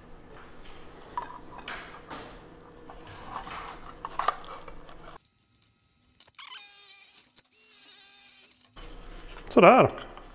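Aviation snips cutting sheet steel, a few crunchy snips through the curved panel during the first five seconds. About five seconds in the sound cuts out abruptly, and only fainter sound follows.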